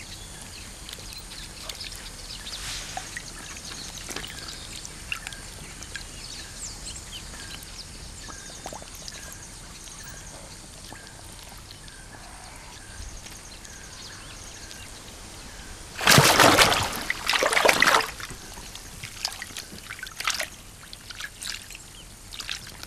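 Water ambience with a faint regular chirp, then about sixteen seconds in a loud two-part splash as a Nile crocodile lunges at a young monitor lizard swimming in the water and misses, followed by a few smaller splashes.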